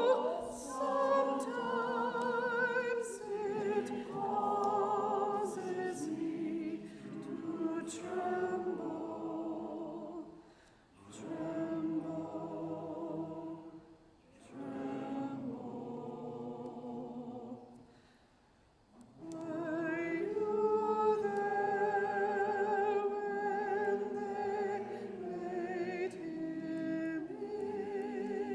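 Voices singing unaccompanied, in several slow phrases broken by brief pauses.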